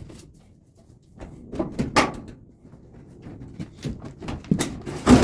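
Clothes dryer making irregular short squeaks and knocks, the loudest near the end.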